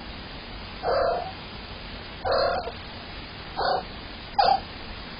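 A cat meowing four times, short calls about a second apart, over a faint steady hiss.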